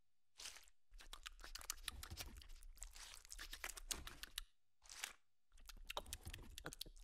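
Crispy fried chicken skin being torn off the pieces and chewed: rapid crackling, tearing and crunching, with a short break a little past halfway.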